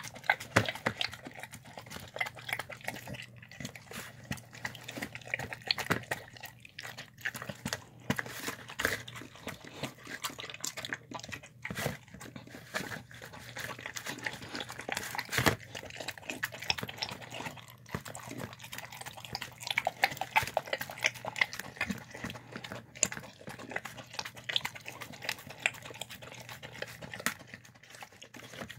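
A dog eating chicken and rice from a container, close up: a continuous, irregular run of wet chewing, smacking and licking, with small clicks of teeth and tongue against the container.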